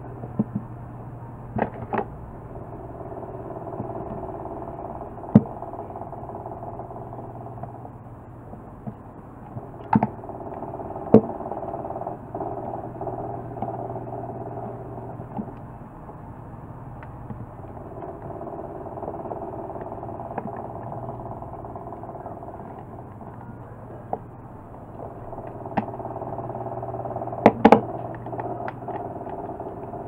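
Sharp clicks and knocks of hard plastic hair-dryer parts being handled and fitted together, loudest in a quick cluster near the end, over a steady mechanical hum that swells and fades.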